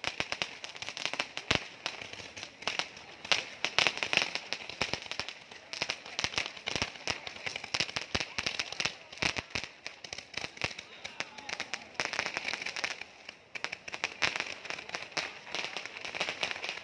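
Fireworks and firecrackers going off in dense, unbroken crackling and popping, with crowd voices underneath.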